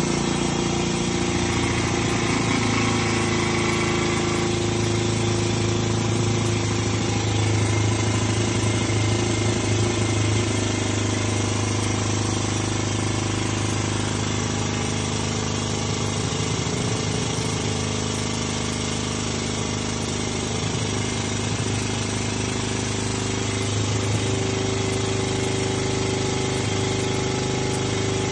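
Air-over-hydraulic pump running steadily under load, driving the hydraulic ram of a tube bender through a bend in 42.4 mm steel tube sleeved with 33.7 mm tube.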